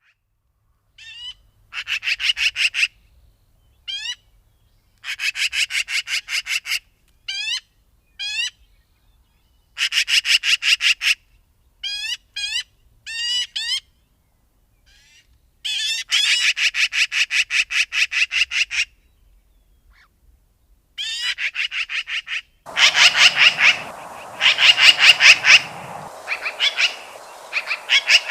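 Magpie chattering: harsh rattling runs of about seven strokes a second, each run lasting one to three seconds, with short single rising calls between them. Near the end comes a louder run of chatter over a steady background hiss.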